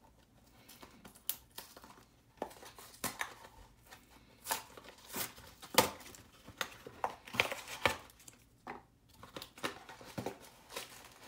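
A trading-card hanger box being opened by hand: cardboard and plastic packaging tearing and crinkling in irregular snaps and rustles.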